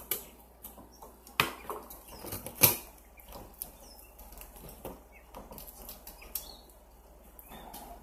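Ice being crunched between the teeth close to a microphone: a few sharp crunches, the loudest about one and a half and two and a half seconds in, with fainter crackles in between.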